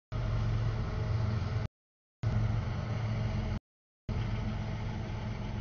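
CSX double-stack freight train passing: a steady low rumble with a deep hum from the diesel locomotives and rolling cars. The sound keeps cutting out completely for about half a second every second and a half, dropouts in the audio feed.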